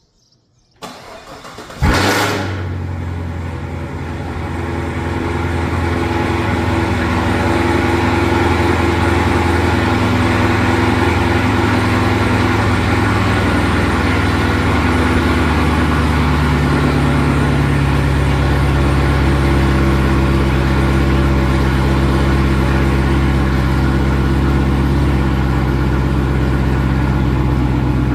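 Cadillac CT5-V Blackwing's supercharged 6.2-litre V8 with a Soul Performance downpipe and Corsa cat-back exhaust being started: the starter cranks briefly, the engine catches with a loud flare about two seconds in, then settles into a steady idle.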